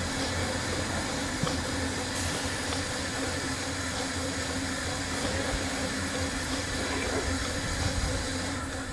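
Small narrow-gauge steam locomotive hissing steadily as it stands on a turntable being turned, with a few faint clicks.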